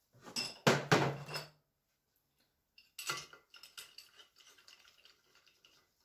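Metal tools and engine parts clinking and clattering on a workbench: a cluster of knocks with a brief ring about half a second to a second and a half in, then another clatter about three seconds in, trailing off into light clinks.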